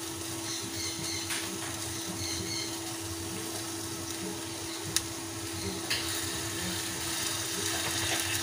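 Whole chicken sizzling on a stovetop grill pan over a gas burner: a steady hiss with a steady low hum under it, and two sharp pops about five and six seconds in.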